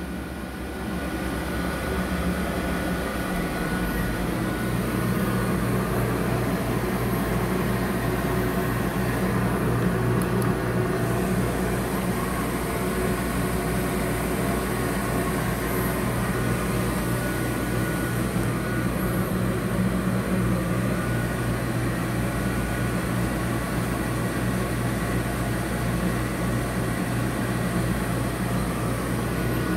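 A 4 kW conveyor UV curing machine running with its curing lamp lit: a steady hum of the lamp's cooling fans and power supply, with a low electrical drone. It comes up a little louder about a second in, then holds steady.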